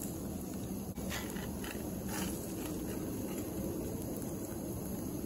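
Metal spatula scraping under and flipping fried eggs in a cast iron skillet, a few short scrapes between about one and two and a half seconds in, over a steady low background noise.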